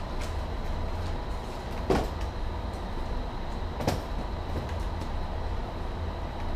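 Steady low rumble of office ventilation with a faint steady whine, and two sharp knocks on the desk about two seconds apart, from papers and objects being handled.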